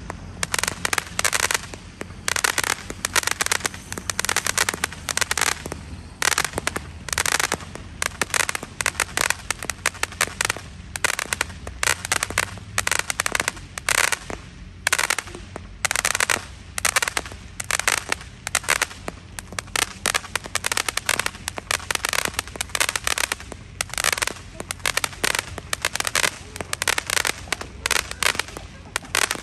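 Consumer fireworks cake firing shot after shot: a rapid, unbroken run of launch pops and aerial bursts, several a second.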